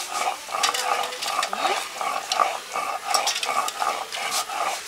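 Eggs being washed by hand in a steel bowl of water: rhythmic swishing at about three strokes a second, with the shells clicking against each other and the bowl.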